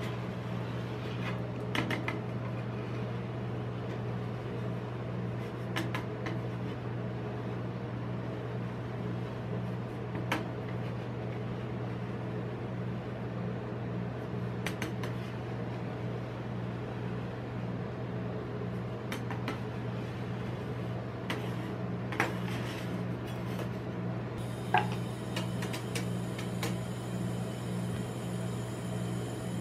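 Steady low hum of an ice-cream-roll machine's refrigerated cold plate, with a handful of short scrapes and taps of a metal spatula on the steel plate as frozen ice cream is cut and rolled.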